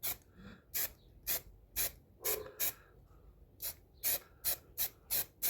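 Aerosol can of primer spraying in about a dozen short hissing bursts, about two a second with a pause in the middle: controlled spraying to lay on a light coat.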